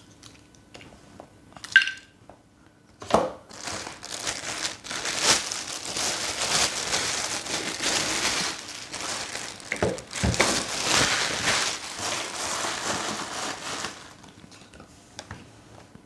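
Clear plastic wrapping bag crinkling and rustling for about ten seconds as a handheld vacuum cleaner is pulled out of it, after a couple of light knocks.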